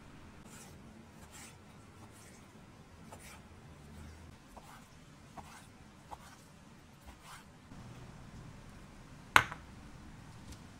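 Chef's knife slicing raw chicken breast into strips on a wooden cutting board, soft cuts about once a second. A single sharp knock near the end is the loudest sound.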